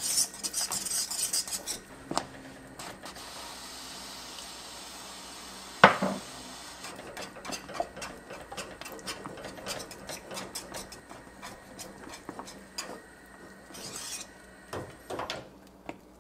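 Small metal wire whisk scraping and clicking against a nonstick frying pan as it stirs a thick acorn-starch batter cooking into acorn jelly. Quick scraping strokes at first, then slower, uneven clicks, with one sharp knock about six seconds in.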